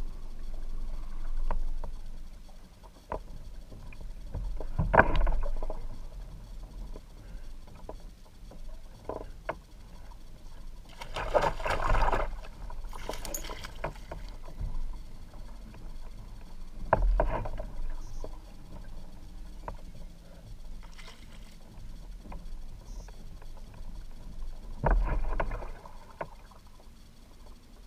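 Water splashing around a fishing kayak in several short bursts, with scattered light clicks and knocks in between.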